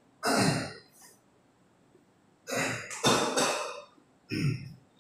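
A man coughing four times, two of the coughs close together in the middle.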